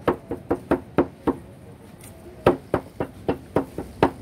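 Kitchen knife chopping raw tuna meat on a wooden table top: a quick run of sharp knocks, about four a second, with a pause of about a second midway.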